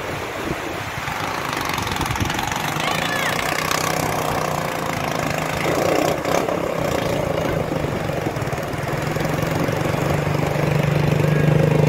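Small motorcycle engine running steadily, growing louder near the end as it rides closer across the sand, with surf and wind on the microphone.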